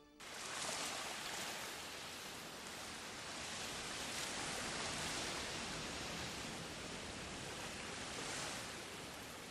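Steady, even rushing noise with no tones or beat in it, starting abruptly just after a fade-out of music.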